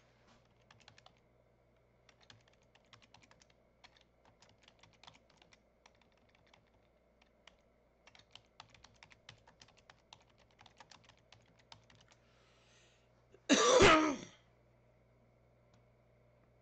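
Computer keyboard typing: light key clicks in quick runs, then one loud, short cough near the end.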